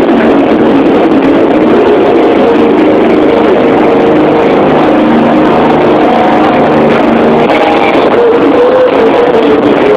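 Loud live rock band music, heavily overloaded and muddied in a phone's microphone, with held notes and a voice-like line gliding in pitch about eight seconds in.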